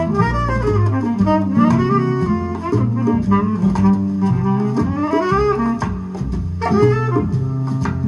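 Recorded music with a melody over a bass line, played through hi-fi loudspeakers driven by 845 single-ended triode tube amplifiers. It is an instrumental stretch before the singer comes in.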